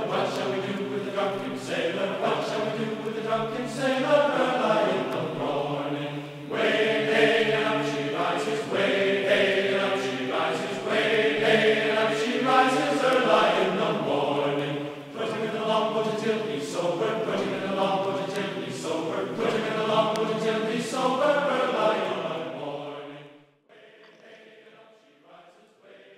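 A choir singing slow, sustained chords with a thin sound that lacks deep bass and high treble. The voices drop away about 23 seconds in, leaving only faint room sound.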